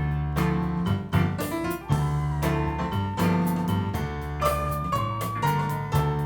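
Instrumental break in a Hebrew worship song: keyboard playing chords and a melody line over bass, with a steady beat.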